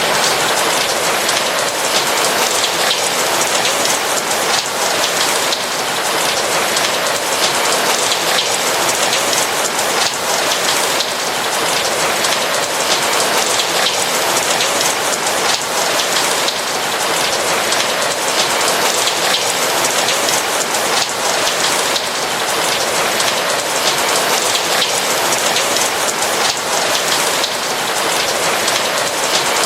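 Steady rain falling, a dense hiss of many raindrops with fine pattering on a surface.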